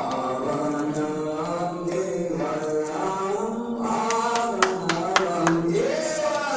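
A group of voices chanting in unison, holding long notes that step up and down in pitch. From about four seconds in, a few sharp percussive hits sound over the chant.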